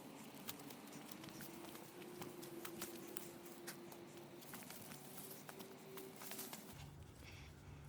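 Footsteps of a hiker walking on a trail, a quiet, irregular series of taps and scuffs. A faint steady hum runs under them, and a lower hum joins near the end.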